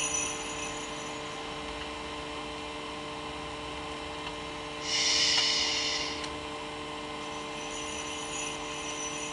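Steady hum with several held tones from a small digital decoration projector running. About five seconds in, a bright, hissing burst lasting just over a second comes from its built-in speaker as part of the animated Santa scene's soundtrack.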